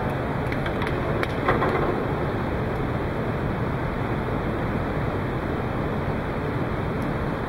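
Steady background noise of a snooker hall, with a few light clicks and one short knock about a second and a half in.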